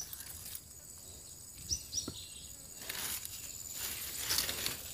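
Steady high-pitched insect drone, with light rustling and small knocks from handling leafy bitter melon vines, and two short falling chirps about two seconds in.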